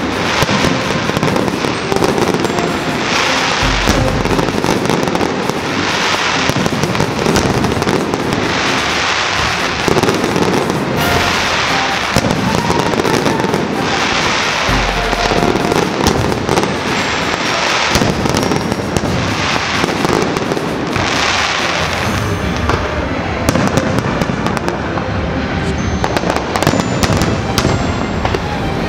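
Aerial fireworks display: a dense, continuous barrage of shell bursts and crackling, with louder bursts every couple of seconds.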